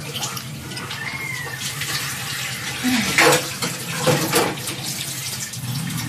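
Wet chewing and mouth sounds of a person eating ripe jackfruit pods, with a few louder smacks about three and four seconds in, over a steady hiss.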